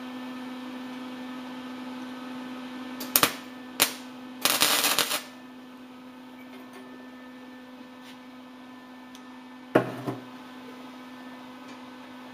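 Lincoln 180 MIG welder striking short welding arcs on a metal branch. There are two brief tacks about three seconds in, a longer weld of well under a second just after, and two more quick tacks near ten seconds in, over a steady hum.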